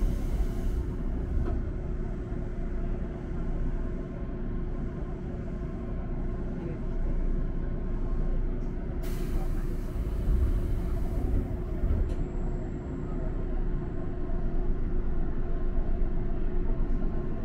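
Inside the cab of an electric train standing at a station: a steady low rumble and hum from its running equipment, with a burst of compressed-air hiss near the start and another about nine seconds in that lasts about three seconds, typical of the air brakes venting.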